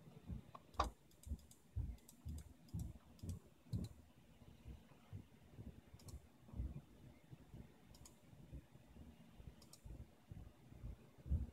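Faint, irregular clicks and taps from a computer mouse and keyboard being worked at a desk, with the loudest click about a second in.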